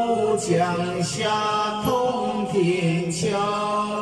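A man singing a Buddhist sutra chant in long, held notes.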